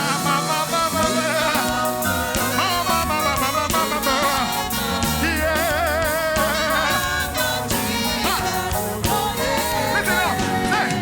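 Gospel song: a singer draws out long wordless notes with wide vibrato, strongest about halfway through, over a band with a steady drum beat and bass.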